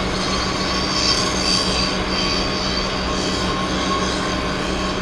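Steady machinery noise from pile-driving work on a crane barge: a constant low hum with a high-pitched whine over it, a little louder between about one and one and a half seconds in.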